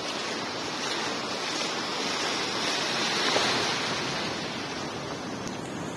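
Sea waves washing over a shallow sandy beach, a steady rush of foaming water that swells about three seconds in and then eases.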